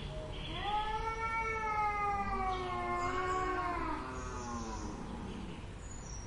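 A cat giving one long, drawn-out meow lasting about four seconds, rising in pitch at the start, then slowly falling and wavering before it fades out.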